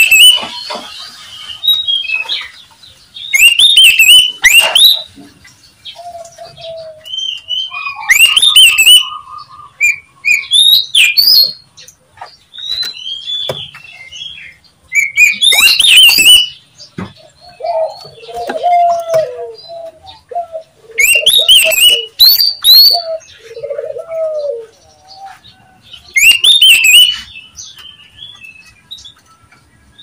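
Oriental magpie-robin singing: loud bursts of quick chirps and whistles every few seconds, with quieter, lower warbled notes in between.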